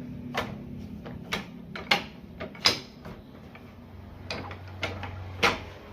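A run of about eight sharp, irregular knocks over a steady low machine hum.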